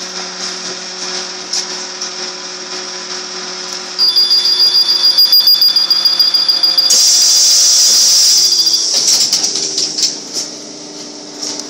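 Škoda 15Tr trolleybus standing at a stop: a steady hum, then from about four seconds in a rapidly pulsing high door-warning beep, followed by a loud hiss of air from the pneumatic doors closing for about two seconds.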